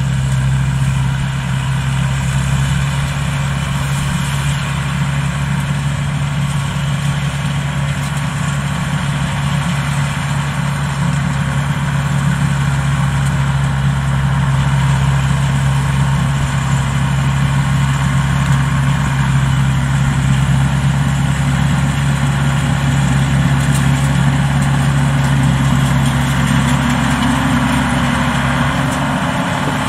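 Vietnamese-built rice combine harvester running steadily as it moves through the paddy cutting and threshing rice, a constant low engine drone with the mechanical hum of the machine above it.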